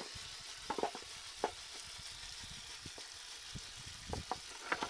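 Water hissing steadily as it sprays over a sand-cast aluminium part, while a knife scrapes the mould sand off it in a few short strokes, one about a second in and two near the end.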